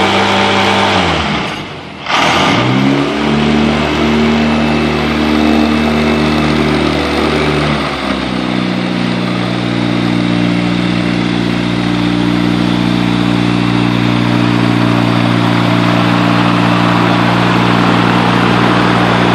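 Viking 130 hp aircraft engine running with its propeller turning in a ground run, a steady engine drone with propeller noise. The pitch sags with a brief dip in level about two seconds in, recovers, then settles to a different steady speed around eight seconds in.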